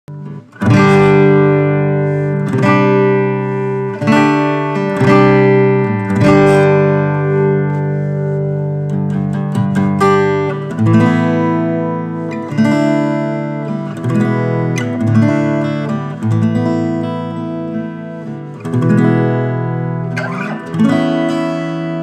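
GWG Guitars Black MAHO 00 acoustic guitar played fingerstyle, with chords plucked about every one to two seconds and left to ring out.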